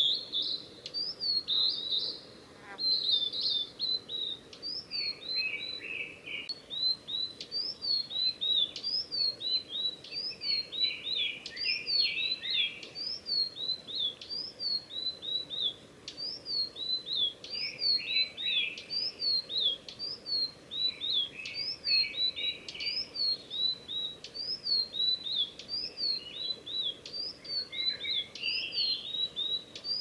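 Male blue-and-white flycatcher singing: a steady run of short, high, down-slurred whistled notes about twice a second, with lower, denser phrases mixed in now and then.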